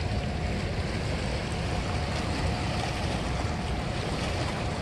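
Steady rushing of river water from a dam releasing water, an unbroken noise with a deep rumble underneath.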